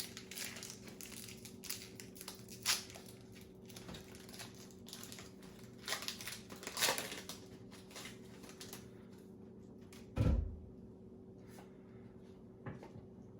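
Foil wrapper of a Pokémon trading-card booster pack crinkling and crackling as it is torn open and the cards handled, with a dull thump about ten seconds in.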